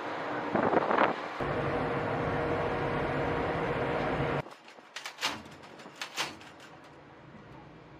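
A steady mechanical hum with wind noise, cut off suddenly about halfway through. A quieter stretch follows with a handful of sharp metallic clicks and knocks.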